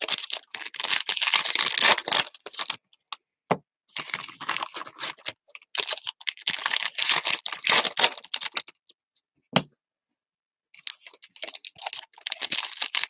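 Foil trading-card pack wrappers crinkling and tearing as packs are ripped open and handled, in four bursts with short pauses between them. A couple of brief soft knocks come in the pauses, about three and a half seconds in and near the ten-second mark.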